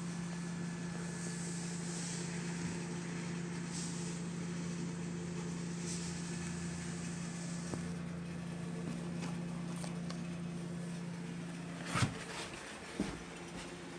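A steady low mechanical hum, with two sharp knocks about a second apart near the end.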